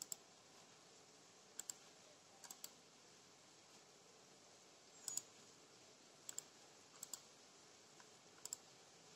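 Faint clicks of a laptop's pointer buttons while right-click menus are opened and chosen from. The clicks come in quick pairs, about six times, spread a second or two apart.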